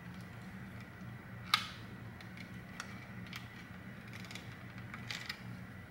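Pliers clicking and tapping against the thick metal battery terminals and plastic housing of a Dyson V11 vacuum handle as the terminals are bent straighter, with one sharper click about a second and a half in and lighter clicks after it, over a faint low hum.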